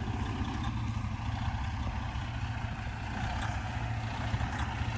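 Freightliner truck's diesel engine idling with a steady low hum.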